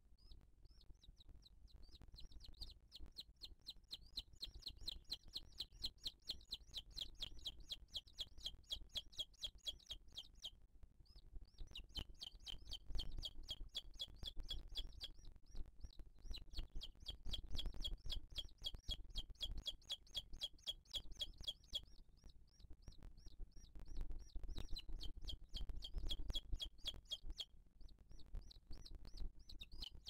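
Booted eagle chick begging while being fed: a fast run of high, thin peeps, several a second, in long bouts with short pauses between them.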